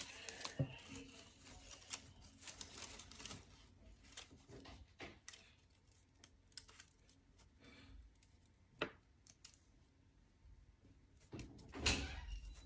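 Paper being handled and rustled, with many scattered small clicks and crinkles; a sharper click about nine seconds in and a louder rustle near the end.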